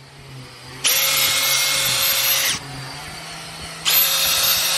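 Cordless drill running in two steady bursts, one of nearly two seconds and a second starting about four seconds in, drilling holes through a plastic rubbing strake on a boat's hull.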